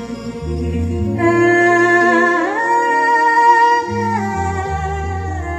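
A woman singing long held notes into a microphone over instrumental accompaniment, her voice sliding up to a higher held note about two and a half seconds in, during a stage sound check.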